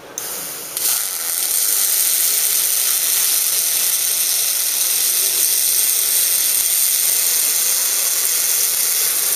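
Robotic MAG welding arc running on 2.3 mm steel plate at about 150 A and 17 V: a steady, loud sizzling hiss that strikes just under a second in.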